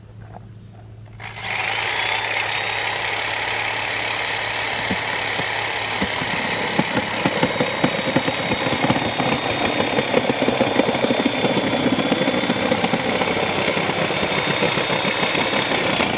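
Reciprocating saw starting about a second and a half in and running steadily with a motor whine, cutting plastic bumper material; from about six seconds in, rapid chattering blade strokes join it.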